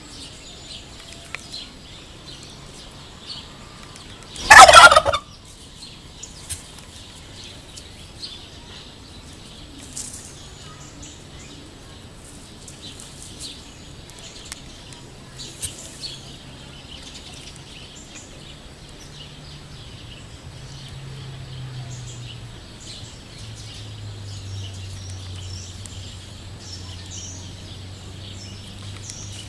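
A courting turkey gobbles once, a loud rapid rattling call of about a second, a few seconds in. Faint high chirping runs underneath, and a low steady hum comes in during the second half.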